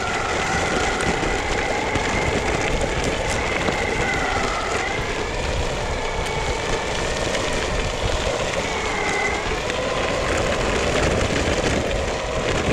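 Electric off-road skateboard on the move: the motors whine steadily, with the pitch dipping and rising a little as speed changes, over the rumble of its 8-inch all-terrain tyres rolling on a gravelly dirt trail.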